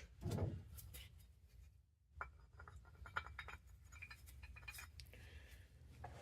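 Faint scattered clicks and light knocks of small parts being handled, over a steady low hum.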